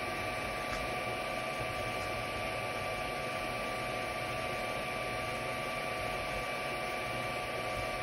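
FDM 3D printer running mid-print: the steady whir of its cooling fans with a constant high-pitched whine layered over it.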